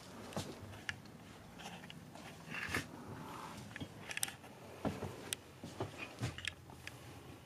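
Scattered light clicks, taps and rustles of handling and movement in a small enclosed space, over a faint low hum.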